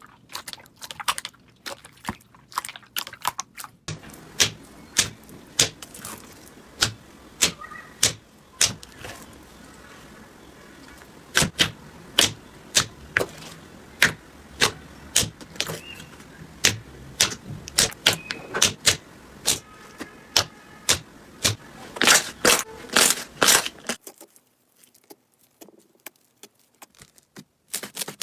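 Slime being squeezed and pressed by hand, giving a run of sharp popping clicks about one or two a second, as air pockets burst. The popping grows louder a few seconds in and drops away near the end.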